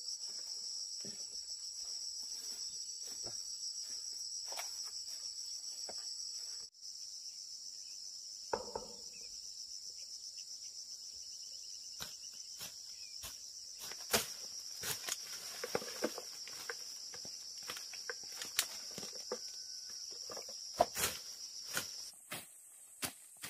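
Insects buzzing in a steady, high-pitched chorus, with scattered light clicks and knocks over it. The chorus breaks off for an instant about a third of the way in and stops abruptly near the end.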